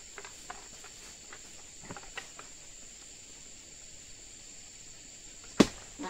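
One sharp, loud chop about five and a half seconds in: a pole-mounted harvesting tool striking the base of an oil palm frond. Under it runs a steady high insect drone, with a few light rustles and steps in the undergrowth in the first couple of seconds.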